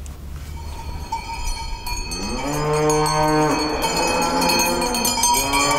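A cow mooing: one long, loud call about two seconds in, with cowbells ringing and clanking from then on.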